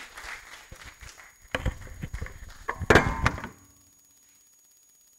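Applause dying away, then a series of thumps and knocks, the loudest about three seconds in. After that the sound drops abruptly to near silence.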